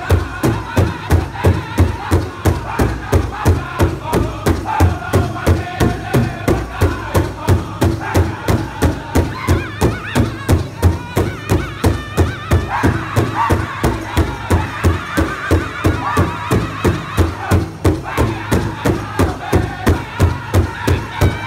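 Powwow drum group singing a grass dance trick song, the men striking one large shared drum in unison with a steady beat of about two and a half strokes a second under the group's singing.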